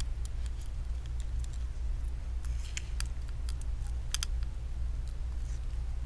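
Light scattered clicks and taps of fingers handling and pressing small parts on a smartphone's display assembly, bunched around three and four seconds in, over a steady low hum.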